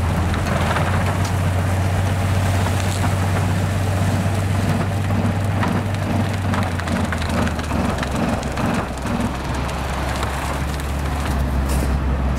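A railway snow-plow train ploughing through deep snow: a steady low drone from its drive, under a dense hiss and crackle of snow being pushed and thrown by the blade. The drone drops to a lower note about seven seconds in.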